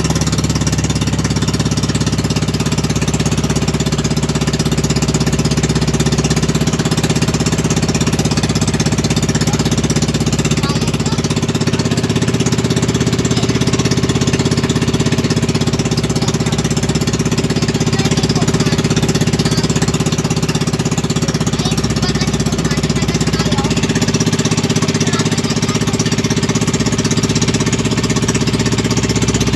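A fishing boat's engine running loudly and steadily at an even speed.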